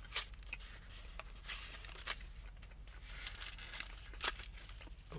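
Paper food packaging being handled: light rustling and crinkling with a few sharp clicks.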